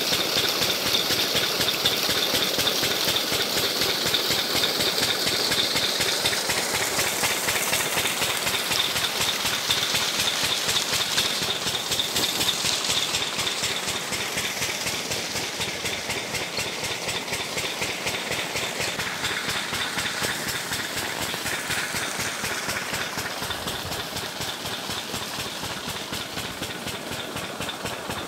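An irrigation pump engine runs steadily with a rapid, even thudding beat, over the rush of water pouring from its outlet pipe into a field channel. The sound grows a little fainter after about halfway.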